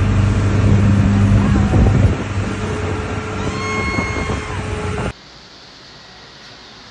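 Loud vehicle running noise with a steady low hum; it cuts off abruptly about five seconds in, leaving a faint hiss.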